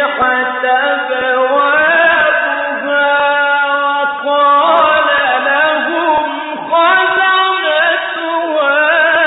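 A man reciting the Quran in the melodic Egyptian mujawwad style, with no accompaniment. He holds long ornamented notes that slide and waver in pitch, and fresh phrases begin about halfway and about three-quarters of the way through.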